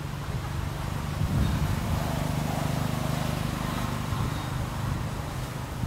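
An engine running with a steady low hum, growing louder about a second and a half in and easing back after about four seconds.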